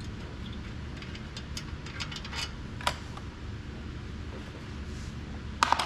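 Light metallic clicks and knocks from clutch parts being worked loose by hand, over a steady low shop hum, with a louder short clatter near the end.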